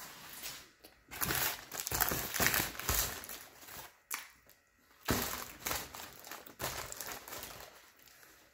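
Crinkling and rustling of a yellow paper sandwich wrapper being handled, in irregular bursts with a short lull about halfway through.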